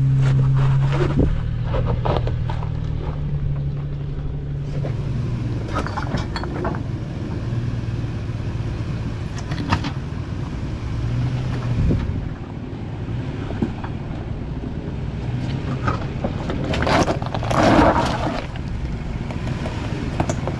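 A 4x4's engine running steadily on a rocky off-road trail, with scattered knocks and a louder scraping burst about three-quarters of the way through.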